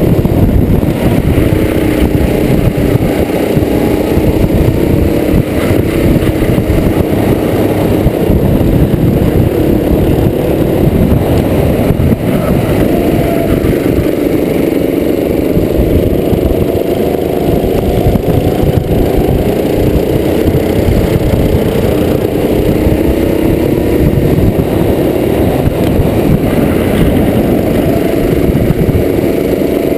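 Go-kart engine heard from on board, running hard at speed, its pitch dipping as it slows for corners and rising again as it accelerates out, over low rumbling wind and road noise.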